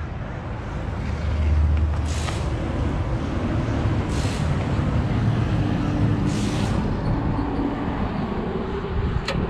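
Superior Smoke blower's electric fan starting up about a second in and running steadily, with a few short hisses, as it pushes smoke from a smoke cartridge into a sewer line through the cleanout for a smoke test.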